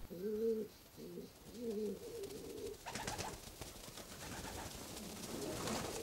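Pigeons cooing in three short phrases. About three seconds in, a flock takes off, with a rush of rapid wingbeats.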